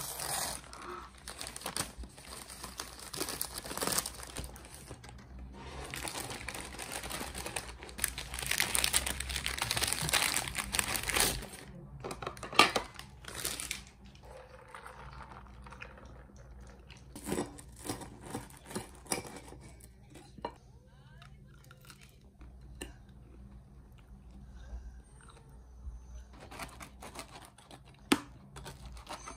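Paper wrapper around a takeout waffle crinkling and tearing as it is unwrapped by hand, dense for about the first eleven seconds. After that it is quieter, with scattered light taps and a sharp one near the end as a knife and fork cut the waffle on a plate.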